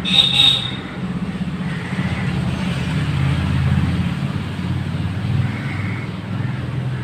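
A low engine rumble that swells and fades, like a motor vehicle running nearby, with a brief high-pitched sound in the first half-second.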